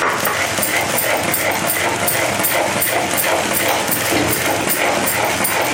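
Thick rava kesari (semolina) cooking in a clay pot while being stirred with a metal slotted spoon: a steady, loud spluttering hiss with a quick, regular scraping.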